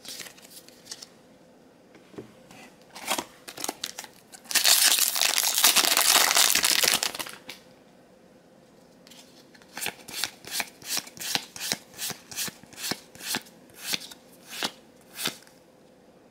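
A Magic: The Gathering booster pack's foil wrapper being torn open and crinkled for about three seconds, then the cards flicked through one at a time: about a dozen short, even card snaps, roughly two a second.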